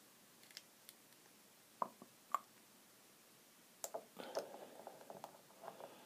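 Faint handling noises as a metal vape tank is filled with e-liquid: two light clicks about two seconds in, then a cluster of small clicks and soft rustles from about four seconds in.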